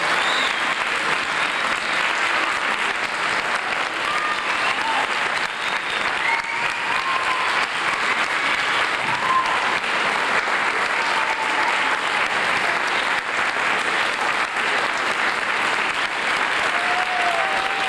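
Audience applauding steadily, with a few short voices calling out over the clapping.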